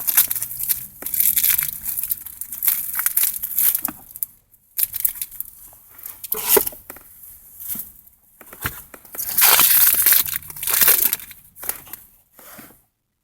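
Foil booster-pack wrapper crinkling and rustling in irregular bursts, with short pauses between them.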